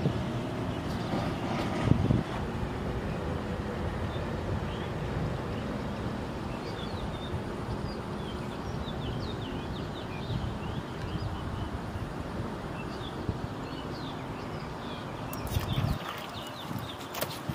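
Wind buffeting the microphone with a steady low rumble, with many faint bird chirps in the background. Near the end the rumble drops out suddenly and a few sharp clicks are heard.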